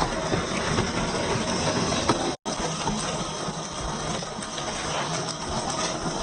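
1:10 scale RC4WD TrailFinder 2 rock crawler driving over rough trail ground: steady noise of the small electric drivetrain and tyres on dirt and rock, with scattered small clicks and crunches. A brief cut in the sound comes about two and a half seconds in.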